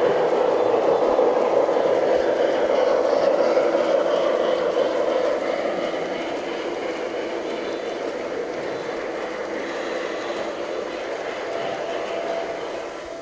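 Large-scale LGB model railway machinery running: a steady mechanical whir and rolling noise that drops in level about five seconds in.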